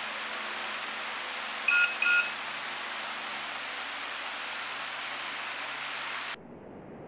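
Two short electronic beeps, the same pitch, about half a second apart, over a steady hiss. The hiss cuts off abruptly near the end.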